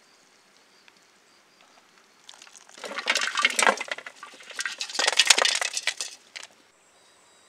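Metal kitchen vessels being handled, two spells of clinking and rattling, the first starting about two seconds in and the second ending about six and a half seconds in.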